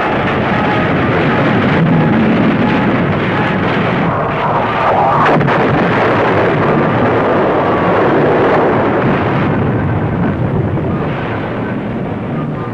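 Wartime battle soundtrack: a loud, continuous din of explosions and gunfire, with a sharper blast about five seconds in.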